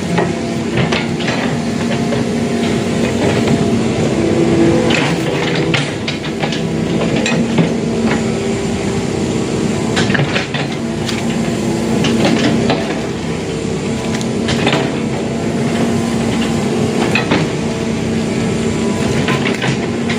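Excavator diesel engine running steadily, with repeated sharp metallic clanks and knocks.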